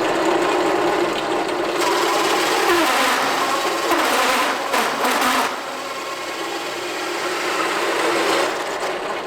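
Drill press running with a 3 1/4 inch hole saw cutting through 3/4 inch plywood: a steady motor hum under the rasp of the saw teeth in the wood.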